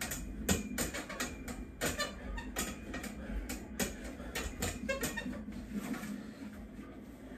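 Irregular clicks and creaks from a freestanding dip station taking a man's weight as he does dips, with a few short squeaks about five seconds in.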